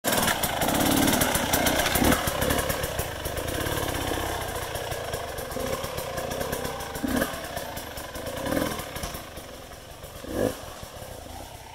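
Dirt bike engine revving hard as a rider climbs a rocky hard enduro section, loud at first and fading over the following seconds.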